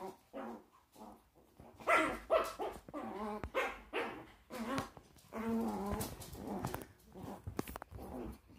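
Small dogs play-fighting, giving short growls, yips and barks at irregular intervals.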